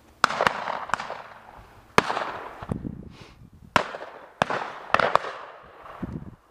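Shotgun shots fired in quick succession, about eight sharp reports spread over a few seconds, each followed by a rolling echo that fades away.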